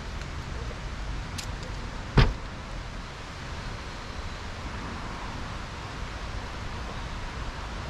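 A camper van's side entry door shut with one sharp thump about two seconds in, over a steady low outdoor rumble.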